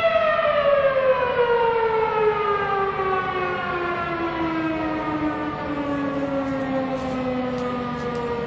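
Electromechanical outdoor warning siren winding down after sounding the noon signal. Its steady tone falls slowly and evenly in pitch, and it is still sounding, low, at the end.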